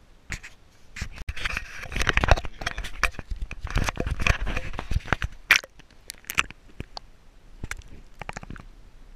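Handling noise on an action camera in its waterproof housing: a dense run of scrapes, knocks and clicks as it is gripped and moved, loudest in the middle, then scattered quieter knocks near the end as it goes under water.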